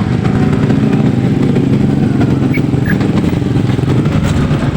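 A motor vehicle's engine running steadily, with road noise.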